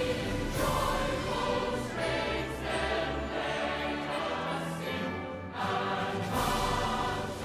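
A choir singing long held notes with musical accompaniment, with a short break between phrases about five and a half seconds in.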